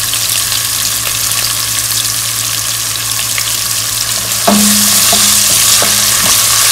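Sliced onions frying in hot oil and whole spices in a pan: a steady sizzle that grows louder about four and a half seconds in, as the onions are stirred and the utensil scrapes and knocks against the pan a few times.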